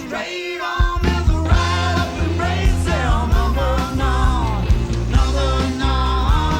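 Rock band playing a song, with bass, drums, guitar and keyboards. The low end drops away for under a second just after the start, then the full band comes back in.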